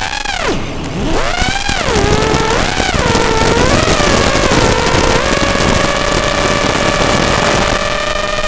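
FPV racing quadcopter's brushless motors and propellers whining, the pitch swooping up and down with each throttle punch and then holding steady in fast, level flight for the last few seconds.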